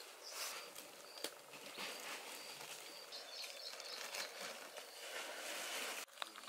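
Faint outdoor ambience: short high bird chirps repeat every second or so over a steady rustling hiss, with a few sharp clicks. The sound changes abruptly near the end.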